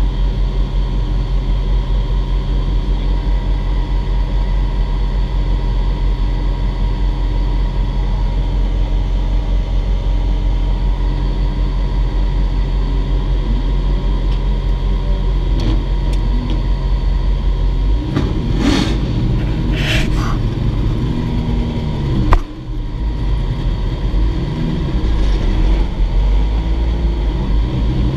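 Lamborghini Huracán's V10 idling steadily, heard from inside the cabin. About eighteen seconds in, the engine note begins to rise and fall, with two short hissing bursts and, a couple of seconds later, one sharp click.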